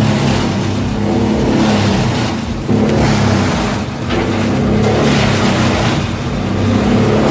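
Bandit 1990XP drum wood chipper running hard, its 300 HP diesel engine and drum going steadily while it chips material, with the level dipping and recovering a few times.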